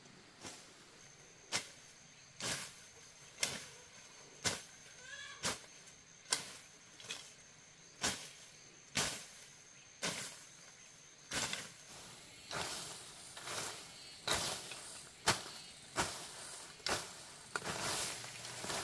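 A blade chopping through tall grass and cane-like stems, with a sharp strike about once a second. From about twelve seconds in the cuts come faster, mixed with the rustle of the falling foliage.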